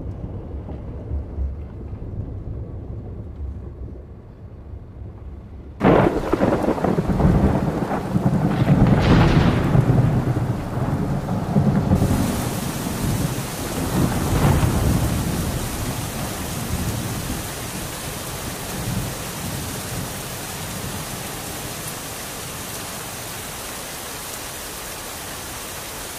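A low rumble, then a sudden loud thunderclap about six seconds in that rolls on for several seconds. Steady heavy rain takes over and continues.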